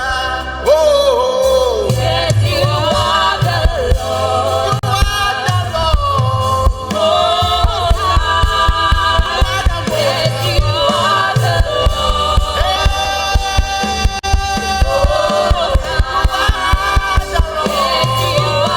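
Live gospel worship music: a choir and vocalists singing over a band with a steady drum beat and bass.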